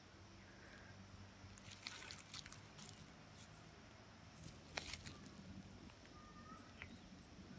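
Near silence with faint crunching and rustling footsteps on dry cut brush, clustered around two to three seconds in, and one sharper click a little before five seconds.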